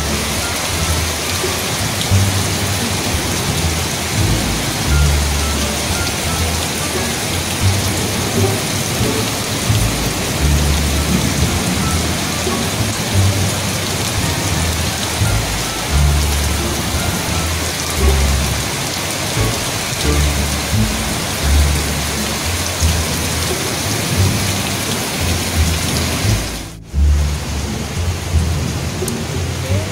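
Heavy tropical downpour: a steady dense hiss of rain pouring on leaves and roofs, with frequent low rumbles underneath. The sound breaks off for an instant near the end.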